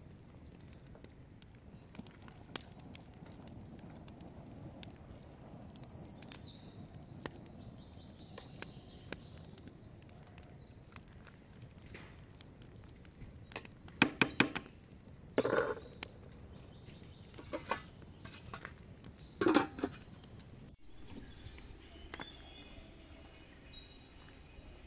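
Quiet outdoor background with birds chirping faintly, broken a little past the middle by a quick run of sharp clicks and then two short, louder sounds.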